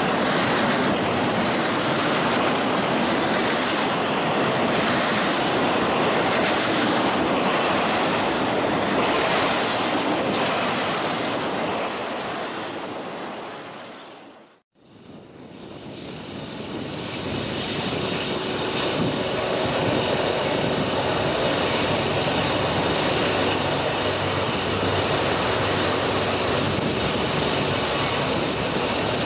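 Freight train cars rolling past close by: steel wheels clacking over the rail joints under double-stack intermodal cars. About halfway through the sound fades out completely and fades back in on a second passing freight train of autorack cars.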